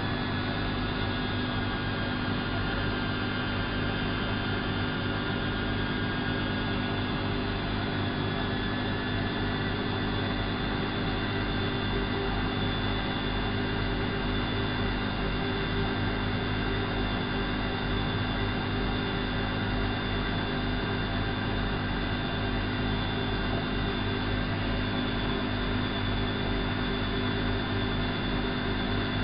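Elin WM26AAA washing machine's motor running steadily, with a low hum and several steady whining tones; a few of the higher tones glide down slightly over the first few seconds.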